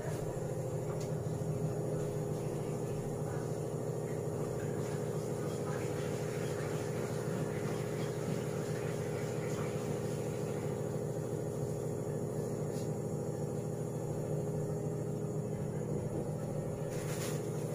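Small electric motor humming steadily at an even pitch, with a deep hum under a higher steady tone; it winds down near the end.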